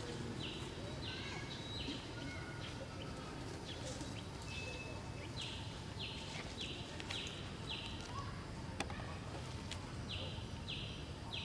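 Forest ambience: runs of short, high calls repeating about twice a second, three times over, above a steady low rumble, with a single sharp click about three quarters of the way through.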